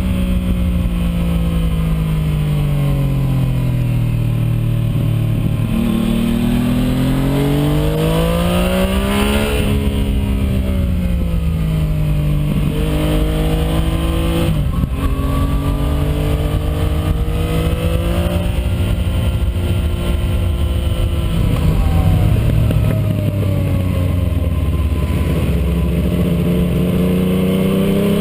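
Yamaha MT-09's three-cylinder engine through an IXIL Hyperlow aftermarket exhaust while riding, revs rising and falling again and again as the bike accelerates, shifts gear and rolls off. There is a sharp break in pitch about halfway, then the engine runs low and steady for a few seconds near the end before revving up again.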